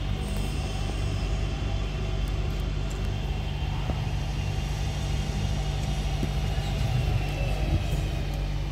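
Class 323 electric multiple unit heard from inside the carriage while running: a steady rumble of the wheels on the track with a low electrical hum. A faint high whine slowly falls in pitch over the last few seconds.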